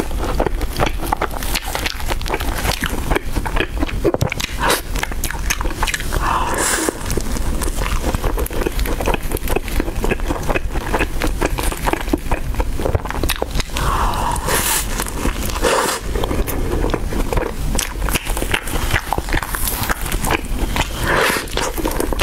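Close-miked chewing of a layered matcha cream pastry: a dense, continuous run of mouth clicks and smacks.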